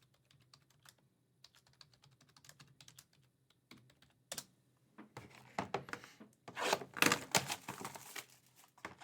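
Scattered light clicks and taps, becoming a dense, louder run of clicking and rustling handling noise about five seconds in.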